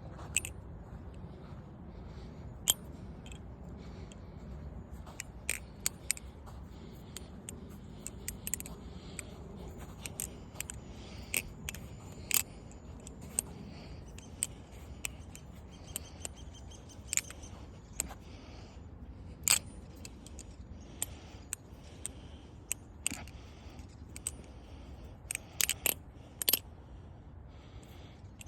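Balisong (butterfly knife) being flipped: irregular sharp metallic clicks and clacks as the handles swing and strike each other and the blade, some in quick clusters of two or three, over a steady low background hum.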